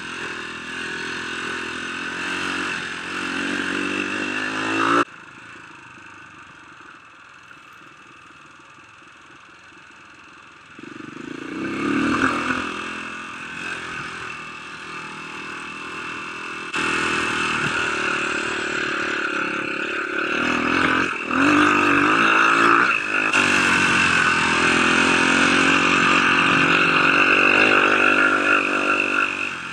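Dirt bike engine running on a trail ride, revving up and down with the throttle. The level drops suddenly about five seconds in and jumps back up twice later on.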